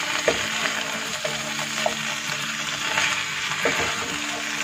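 Chicken pieces frying in a thick masala in a pan, sizzling steadily while being stirred, with a few knocks of the spatula against the pan. This is the bhuna stage, with the spices being fried onto the chicken on high heat.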